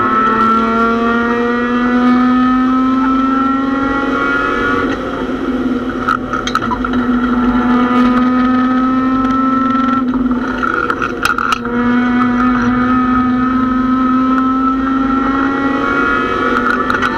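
Mazda MX-6 racecar's engine heard from inside the stripped cabin, pulling hard with its pitch climbing steadily, dipping briefly three times as the driver lifts or shifts. A few sharp clacks and rattles come through around the middle.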